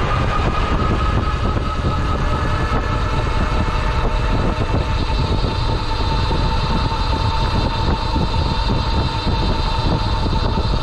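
RadRunner e-bike's geared rear hub motor whining steadily under way, its pitch easing a little lower about halfway through, over a steady low rumble of wind and road noise.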